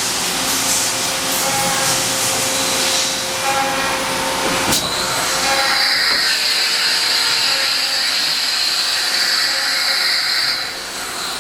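Makino A55 CNC horizontal machining center running, a steady mechanical hiss. About five seconds in there is a sharp click, then a steady high whine over the hiss that cuts off shortly before the end.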